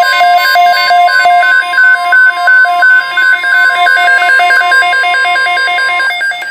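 Midland WR300 weather radio sounding its alert: a rapid beeping alarm, about three beeps a second at two alternating pitches, over the steady NOAA Weather Radio 1050 Hz warning alarm tone, which cuts off about six seconds in.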